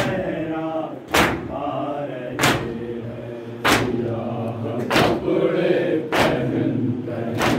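Men chanting a noha together, with a loud unison chest-beat (matam) about every second and a quarter, seven strikes in all.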